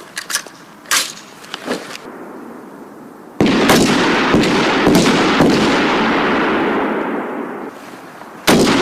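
Small-arms gunfire on a firing range: a few sharp shots early, then a sudden loud burst of shots at about three and a half seconds that rings out and fades slowly over several seconds, and another loud shot near the end.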